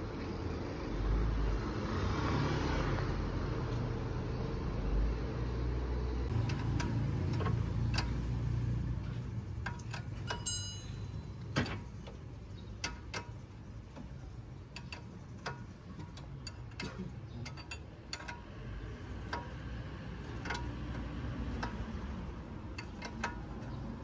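For the first six seconds, a Porsche Boxster 986's flat-six engine gives a low, steady rumble as the car moves slowly on the street. Then comes the sound of hand tools working on the front suspension: scattered metallic clicks and taps, with one ringing metal clink about ten seconds in.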